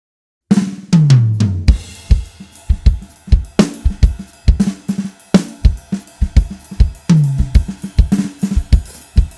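A drum kit starts playing about half a second in, after silence, with bass drum, snare and cymbal hits in a steady groove. Low falling tones sweep down roughly every three and a half seconds.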